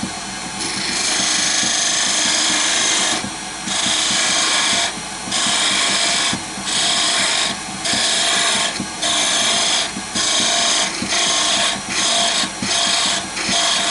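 A turning tool cutting a spinning wooden blank on a wood lathe, in a series of short passes, each about one to two seconds long, over the lathe's steady running hum. The wood is being taken down a little at a time to a measured diameter.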